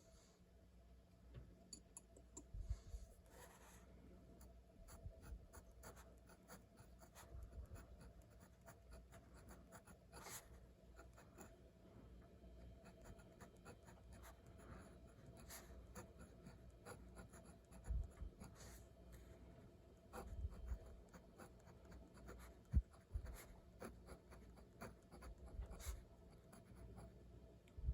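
Handwriting on paper: a steady run of soft, short scratching pen strokes and ticks, with a few low thuds in between.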